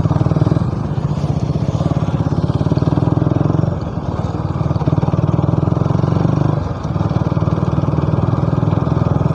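Motorcycle engine running while riding, a steady low pulsing note that dips briefly about four seconds in and again near seven seconds.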